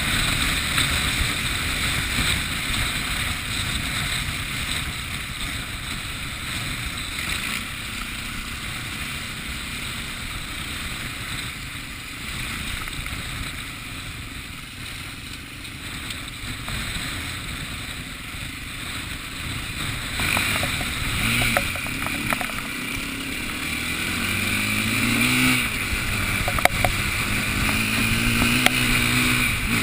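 Wind buffeting the microphone as a constant low rumble. In the last third a pitched drone slides up and down under it.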